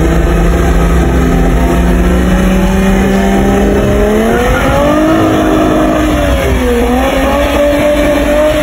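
A car engine being revved and held, its pitch climbing slowly from about three seconds in, dipping briefly about seven seconds in, then climbing again.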